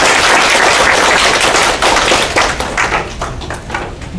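Audience applause: many hands clapping together, dense at first, thinning to scattered separate claps near the end.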